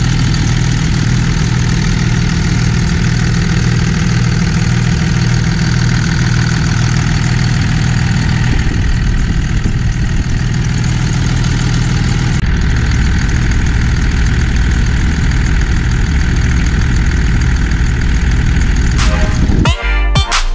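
The 24-valve 5.9 Cummins turbo diesel of a 2001 Dodge Ram 2500 idling steadily, heard with the hood open. Music comes in about a second before the end.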